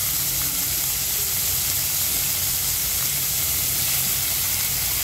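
Marinated chicken pieces sizzling in melted butter and oil in a non-stick frying pan: a steady frying hiss.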